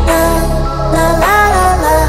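Background music: a sung melody that glides in pitch over a deep bass line.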